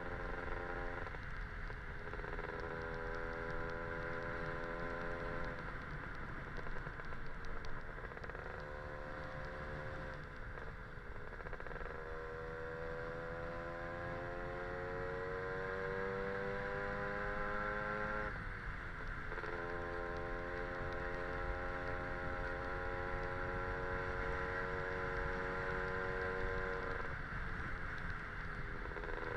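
Casa Performance SSR265 two-stroke scooter engine running under way, with steady road and wind noise. Its pitch holds and then dips sharply about five times, and climbs slowly for several seconds past the middle before a sharp drop.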